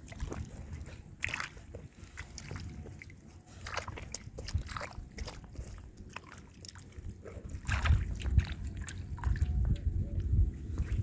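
Water sloshing and splashing, with many scattered short knocks and clicks; a low rumble grows louder about eight seconds in.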